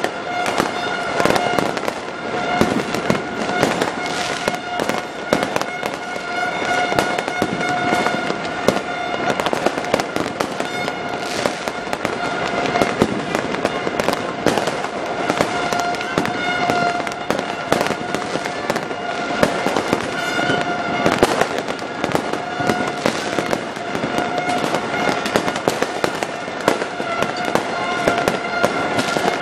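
Fireworks bursting and crackling in a dense, continuous barrage of overlapping bangs, with a steady pitched drone running underneath.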